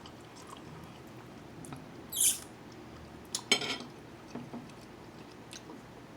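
Close-up eating sounds: soft chewing and little mouth clicks and smacks, with a short hissy burst about two seconds in and a sharper smack with a slurp-like burst about a second later.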